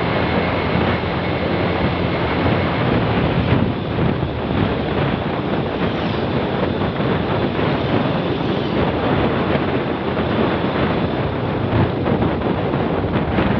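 Steady, loud wind rushing over the microphone while travelling along a road, with vehicle and road noise underneath.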